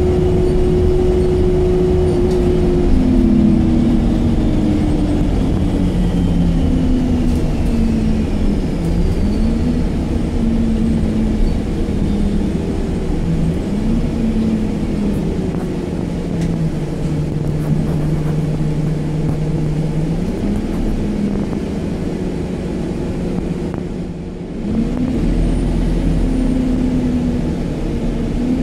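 Alexander Dennis Enviro200 MMC single-deck bus heard from inside while on the move: the diesel engine and drivetrain run under steady road noise, with the engine note repeatedly rising and falling. The sound drops briefly a little before the end, then a deeper low rumble comes in.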